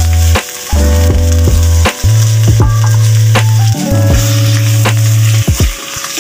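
Background music with long held bass notes that change every second or two and sharp percussive hits, over a steady sizzle of chicken pieces frying as they are stirred in a steel pot.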